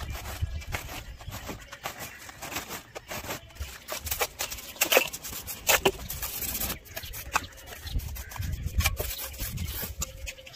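Steel trowel scraping and spreading wet mortar on a concrete surface: an irregular run of scrapes and small knocks, with a couple of sharper knocks around the middle.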